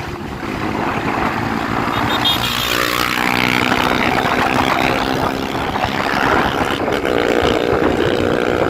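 Honda CG Start motorcycle's single-cylinder engine running through an aftermarket exhaust while riding. The engine note rises as it accelerates at about two to three seconds in and again near the end.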